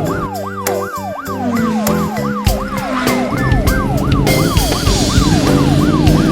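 A siren sound effect whose pitch falls over and over in quick cycles, about two to three a second, over background music with a beat.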